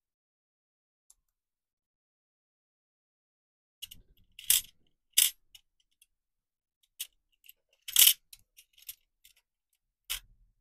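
Small metal model parts clicking and clinking against a clear plastic compartment box as they are picked through with tweezers, starting about four seconds in: a string of sharp clicks, the loudest two in the middle and one more near the end.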